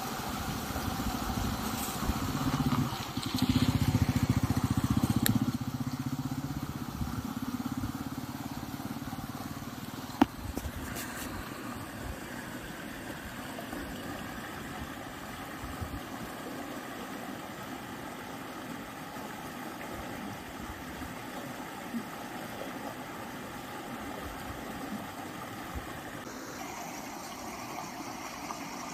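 An engine running, loudest a few seconds in and dropping away after about five seconds, then a steady low background hum, with one sharp tap about ten seconds in.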